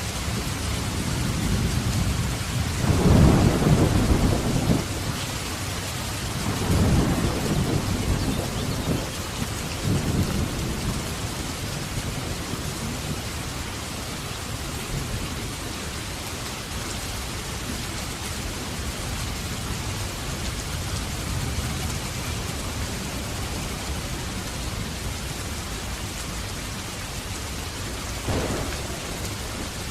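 Steady heavy rain with thunder rolling: a loud low rumble about three seconds in, further rumbles around seven and ten seconds, and a shorter one near the end.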